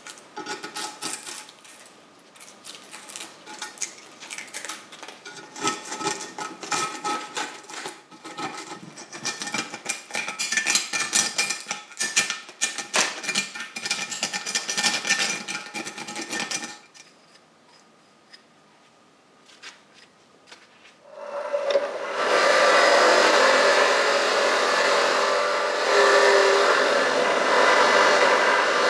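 Metal parts clinking and clanking under hand tools for about sixteen seconds, with some ringing metallic tones. After a short lull a power tool starts about twenty-one seconds in and runs steadily and loudly.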